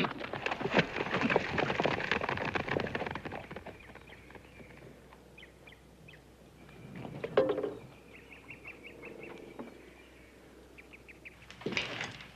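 Footsteps clattering on boards, fading away over the first few seconds, then faint bird chirps and a short trill. A brief louder noise comes about seven seconds in and another scuff near the end.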